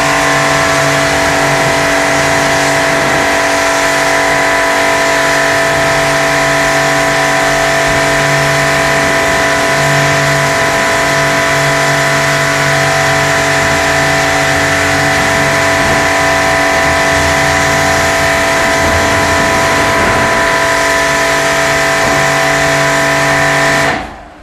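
Pressure washer running steadily: the pump's motor hum under the hiss of the water jet spraying a car's body panels as the shampoo is rinsed off. It cuts off shortly before the end.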